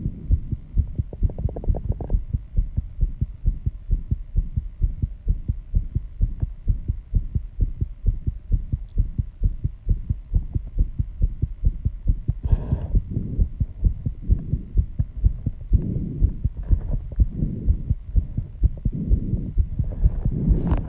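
Fast human heartbeat after intense exercise: a quick, even lub-dub thumping that never lets up. A few breaths are heard over it in the second half.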